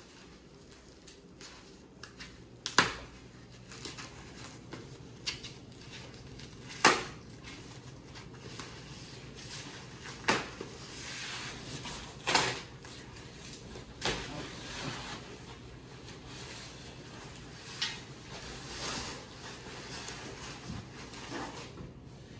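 Roof rack parts being handled and set down: about six sharp knocks and clanks, the loudest about seven seconds in, with rustling between them.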